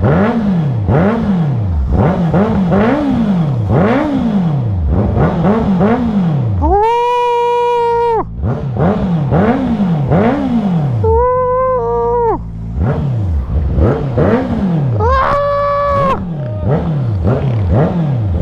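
Honda CB650R E-Clutch inline-four with a full titanium aftermarket exhaust, warmed up and being revved in repeated quick throttle blips, about one a second. Three times the revs are held high and steady for about a second before dropping back.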